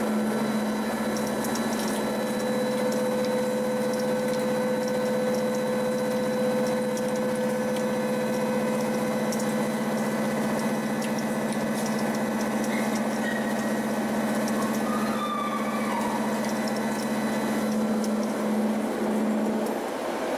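Face mill on a CNC machine cutting a metal block under flood coolant: a steady whine from the spindle and the cut over a wash of spraying coolant, with faint scattered ticks of chips.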